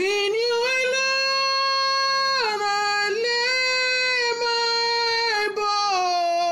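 A woman singing a worship song solo, holding long, drawn-out notes. The pitch dips briefly a couple of times, then steps down lower near the end.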